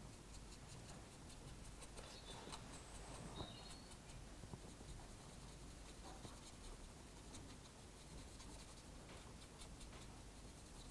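Faint scratching and dabbing of a fine paintbrush on a model diesel locomotive's roof, working dark oil paint into the roof grooves.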